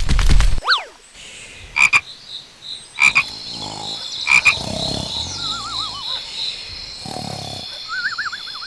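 Low croaking animal calls, about four and seven seconds in, over a pulsing high trill, with three sharp ringing clicks and two wavering whistles.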